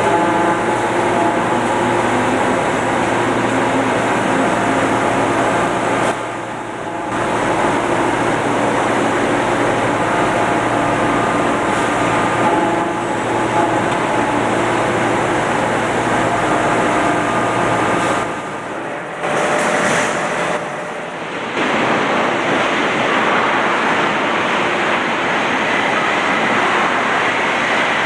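Steady running noise of hydraulic sheet-metal machinery, with a low hum and a few faint steady tones. The hum stops about two-thirds of the way through, and the sound drops away briefly a few times.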